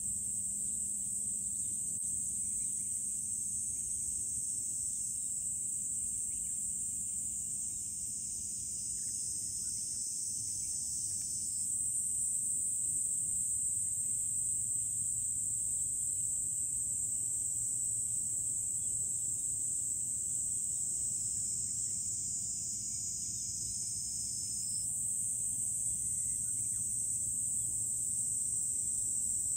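A steady, high-pitched chorus of insects buzzing in the trees. The pitch sinks a little twice, for a few seconds each time, about a third and three quarters of the way through.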